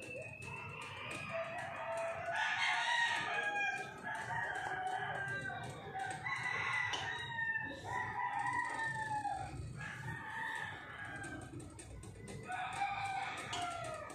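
Rooster crowing again and again, with a call every couple of seconds.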